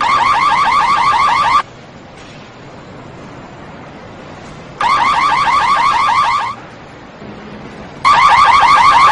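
Electronic car alarm siren sounding in bursts of rapid chirping warble, three times, each lasting about a second and a half with a pause between. Near the end it switches to a lower-pitched warble.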